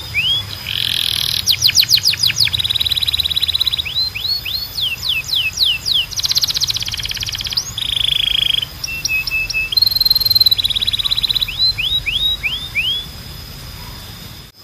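Spanish timbrado canary singing a string of tours: runs of repeated falling whistled notes alternating with fast trills and rolls, stopping near the end. A steady high thin tone runs underneath.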